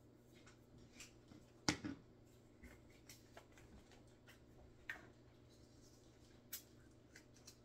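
Faint, scattered clicks and taps of hands handling kitchen items, with one sharper knock about two seconds in, over a low steady hum.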